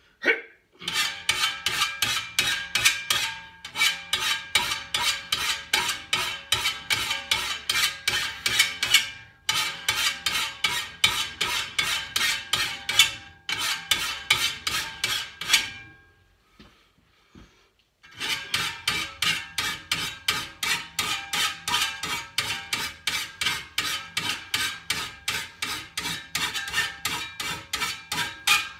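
Hand file rasping across the teeth of a Husqvarna 525RX brushcutter's steel grass blade held in a bench vise, sharpening its cutting edges. The strokes are quick and even, about three a second, with a ringing tone beneath them. They run in long bursts with brief pauses and one stop of about two seconds midway.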